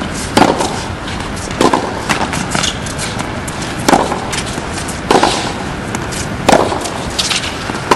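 Tennis ball in a rally on a hard court: sharp pops of racket strikes and ball bounces, one every second or so.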